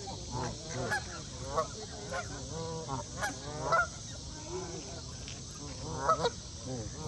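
A flock of Canada geese honking, many short calls overlapping one another, the loudest about four and six seconds in, over a steady hiss.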